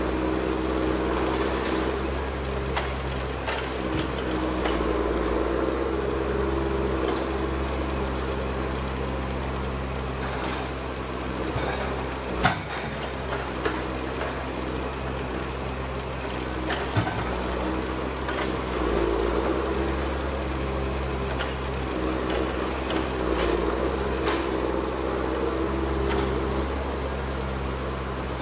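A heavy machine's engine running steadily, swelling twice under load, with a high whine that rises and falls slowly. A few sharp knocks come through, the loudest about twelve seconds in.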